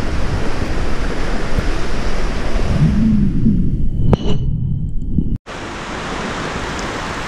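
Rushing stream water with a heavy rumble of wind buffeting the body-worn camera's microphone. After an abrupt cut about five seconds in, the steady, even rush of a steaming hot-spring river flowing over rocks.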